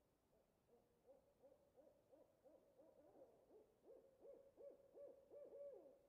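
Owl hooting: a fast run of short hoots, about three a second, faint at first and growing louder toward the end.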